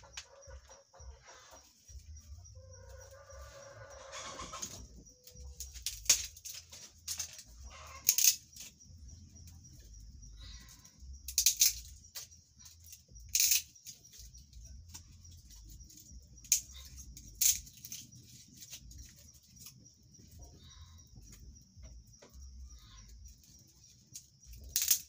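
Wood fire being lit and fed with sticks, with sharp cracks scattered through over a low rumble. A chicken clucks about three seconds in, and a steady high hiss runs underneath.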